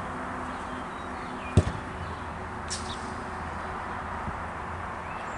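A football kicked once with a sharp thump about a second and a half in, over a steady outdoor background hiss.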